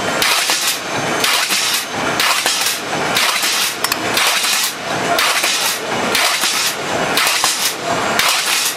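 Automatic can-making press running, its repeated strokes coming evenly at roughly two a second with metallic clatter.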